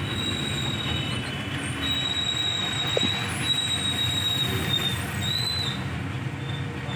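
Truck engine and road rumble heard from inside the cab as the truck rolls slowly, with a high, thin squeal running over it that holds for a second or two at a time and breaks off several times.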